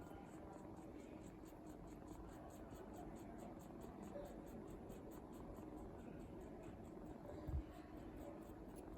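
Kitten sucking on its paw with soft, rhythmic sucking clicks about three to four a second, over a faint low purr. One short low thump comes about seven and a half seconds in.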